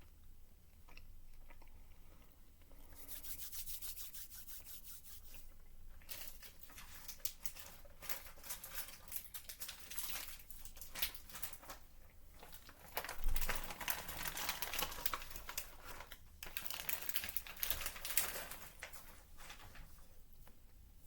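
Plastic candy packaging crinkling and tearing as it is handled and opened, in long stretches of dense crackling, with a dull thump about 13 seconds in.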